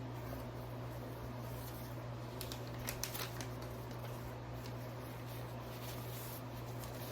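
Faint rustling, sliding and light clicks of a camera box and its packaging being opened by hand, over a steady low electrical hum.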